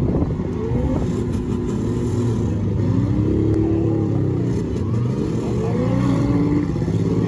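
Several demolition derby cars' engines revving hard together, their pitch repeatedly rising and falling over a steady low rumble.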